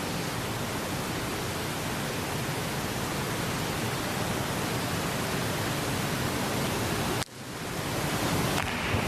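Steady rushing hiss of water from the diving pool's surface spray. It drops sharply about seven seconds in and builds back over the next second or so.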